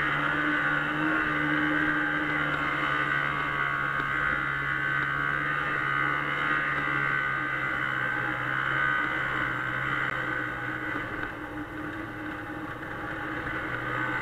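Arctic Cat Bearcat 340 snowmobile's two-stroke engine running steadily at trail speed. It drops a little in level about three-quarters of the way through.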